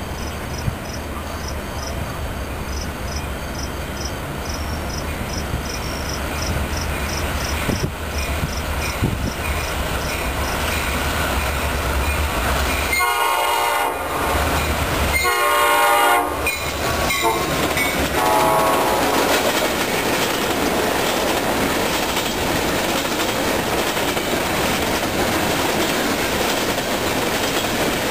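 Diesel-hauled train approaching and sounding its horn in two blasts about halfway through, then rolling past with wheels clattering over the rail joints, growing louder as it nears.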